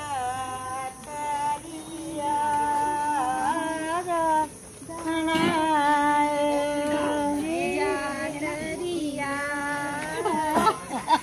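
Women's voices singing a song, with long held notes that bend gently in pitch.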